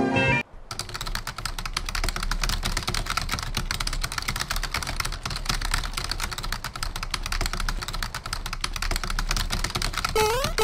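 Fast, continuous typing on a computer keyboard, a dense patter of key clicks. Near the end, a few short rising chirps join in.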